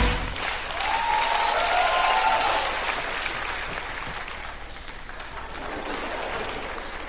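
Studio audience applauding, swelling briefly near the start and then slowly dying down.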